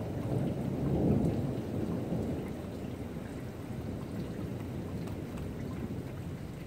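Thunder rumbling, loudest about a second in and then slowly dying away, over a light patter of rain.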